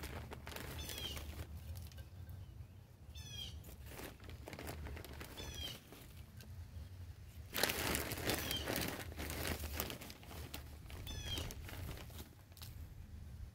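Potting soil and dry leaves rustling and crunching as a hand works them into a pot, loudest just after halfway through. A small bird gives a short chirping call five times, about every two seconds.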